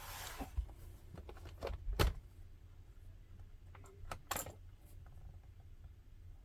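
Light handling of a laptop: a brief hiss at the start, a sharp click about two seconds in, and a few small clicks and a short scrape about four seconds in, over a low steady hum.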